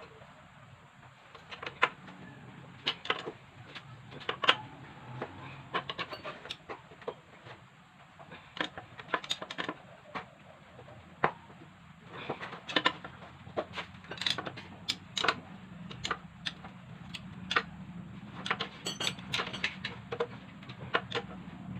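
Irregular metallic clinks and taps of hand tools and small motorcycle engine parts being handled, over a faint steady low hum.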